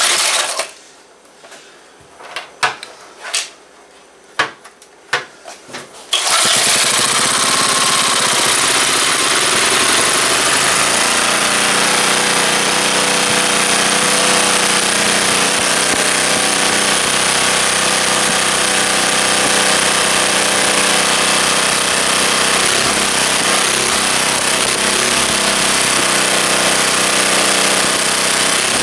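Antique Briggs & Stratton small engine: a few knocks, then it starts suddenly about six seconds in and runs steadily.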